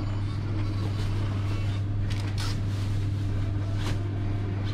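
Steady low machine hum, with a couple of short scraping sounds about two seconds in and again near the end.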